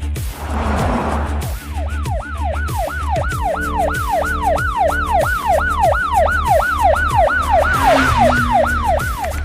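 Ambulance siren in a fast yelp pattern, its pitch sweeping down over and over about three times a second, starting about a second and a half in after a short whoosh. Electronic background music with a steady low beat plays under it.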